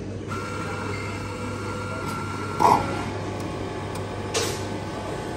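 Self-service automatic coffee machine starting a cappuccino: its motor starts a moment after the button press and runs with a steady whir and whine. A sharp clack comes about halfway through, and a softer click follows later.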